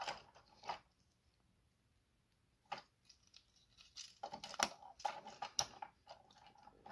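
Light clicks and handling rustle from a small plastic robot action figure being worked by hand, its joints and parts clicking as it is posed. A few clicks at the start, one lone click near the middle, then a busier run of clicks and rustling in the second half.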